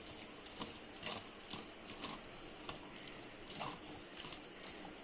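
A hand squishing and kneading a thick curd-and-spice marinade in a steel bowl: irregular soft wet squelches with small clicks.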